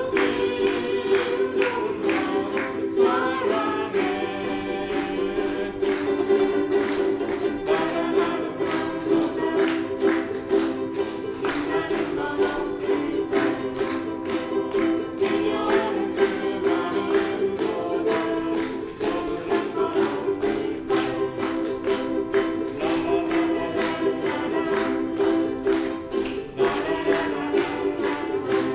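Live ensemble music with a steady rhythm of strummed chords and sustained voices singing along.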